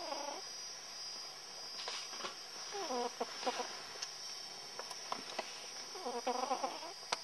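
Domestic cat snoring: a short pitched snore on each breath, about every three seconds. A sharp click near the end.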